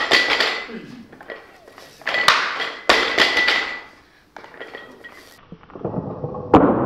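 Weightlifter pulling a 95 kg barbell from the floor. Three short breathy bursts come a few seconds apart, then a sharp stomp of the feet on the platform as the bar is pulled up to the chest.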